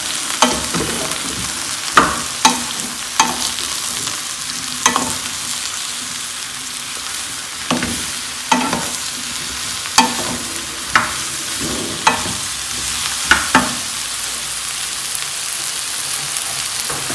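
Diced aubergine and onion frying in a metal pot on medium heat with a steady sizzle. A wooden spoon stirs them, scraping and knocking against the pot about a dozen times at uneven intervals, and the knocks stop near the end.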